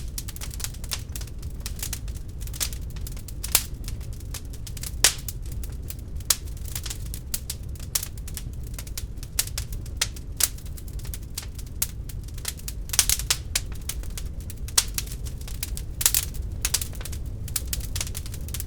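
Wood fire burning in a fireplace: a steady low rumble of the flames with irregular crackles and sharp pops of the burning logs, a few louder snaps scattered through.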